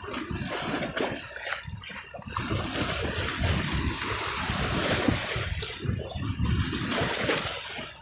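Small river waves lapping and splashing against the bank in an uneven rhythm.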